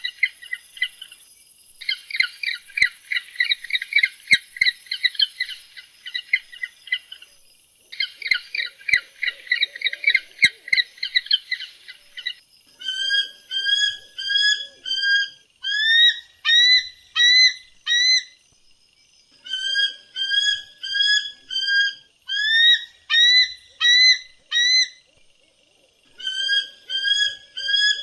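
Bird calls: fast chattering phrases for the first half, then a long series of short, rising whistled notes, about two or three a second, in groups with brief pauses between.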